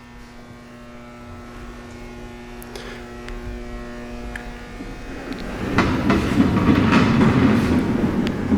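Altendorf F90 Elmo sliding table saw's motorized fence running with a steady hum for about five seconds, then stopping. The sliding table carriage then rolls along its guide with a louder, noisy run and a few clicks.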